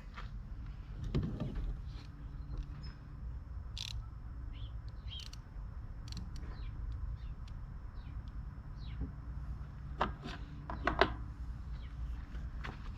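Birds chirping in short high calls over a steady low hum, with a few sharp knocks about ten seconds in.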